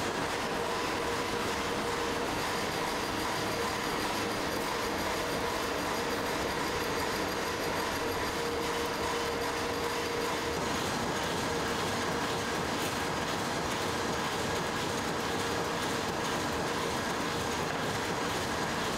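Many screw-making machines running together on a factory floor: a dense, steady mechanical clatter with a constant hum underneath.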